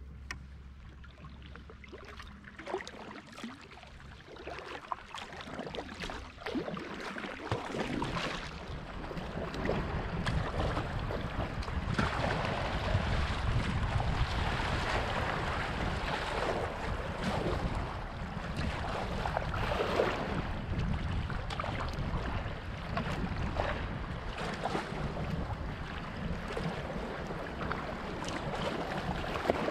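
Kayaking on a river: rushing water and wind buffeting the microphone, swelling noticeably louder about eight seconds in and then holding steady.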